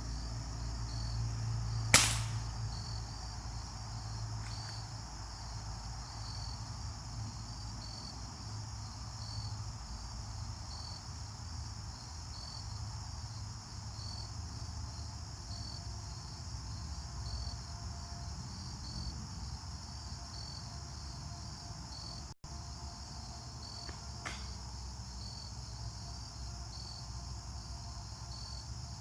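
Pellet air rifle firing once with a sharp crack about two seconds in, over a steady pulsing chorus of crickets; a much fainter click comes near the end.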